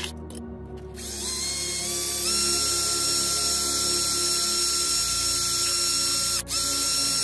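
Cordless drill with a mixing paddle stirring liquid in a plastic tub. A few clicks come first; about a second in, the motor's whine rises in steps and then runs steady. It dips for an instant near the end.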